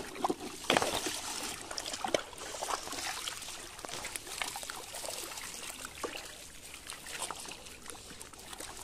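Shallow muddy water trickling and splashing around a fishing net as it is hauled in, with frequent small, irregular splashes from the net and the mullet caught in it. The splashes are busiest in the first couple of seconds.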